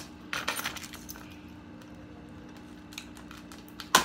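Packaging being worked open by hand: rustling and scraping in the first second, a few small clicks, then a sharp snap just before the end as it comes open.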